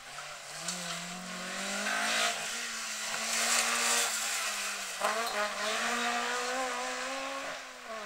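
Rally car engine revving hard as the car approaches and passes close by, its pitch climbing. About five seconds in there is a gear change and the pitch climbs again, then the sound fades as the car moves away.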